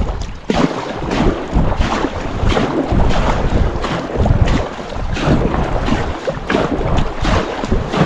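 Kayak paddle strokes splashing in the lake, coming at an irregular rhythm, with wind buffeting the microphone as a steady rumble.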